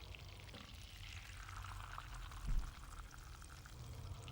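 Cream being poured into a pan of melted butter, hissing softly as it goes in, with a brief low knock about two and a half seconds in.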